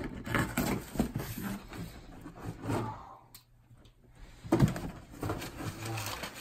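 Cardboard shipping box being opened: the packing tape is cut, and the cardboard flaps and crumpled packing paper inside are handled, giving short scrapes and rustles. A sharp knock comes a little past halfway, after a brief quiet gap.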